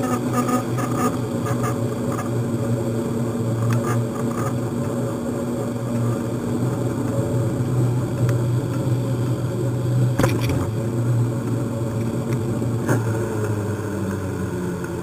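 Motorcycle engine running steadily at low speed, heard from on the bike, with one sharp click about ten seconds in.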